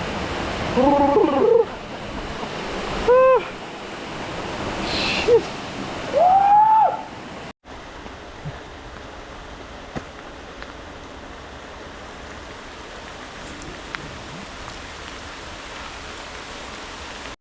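Steady rush of a waterfall pouring into a pool, with a swimmer's wordless yelps and whoops at the freezing water, four or five of them in the first seven seconds. After an abrupt cut about seven and a half seconds in, a quieter steady hiss carries on.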